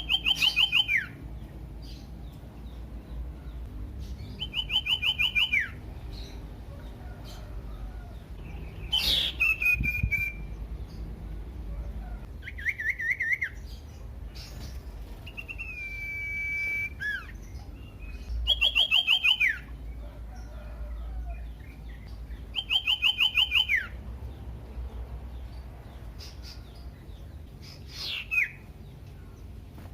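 Common iora calling in phrases a few seconds apart. Most phrases are a fast trill of repeated notes that drops in pitch at the end; a few are clear whistled notes that swoop down and then hold steady. A low steady hum runs underneath.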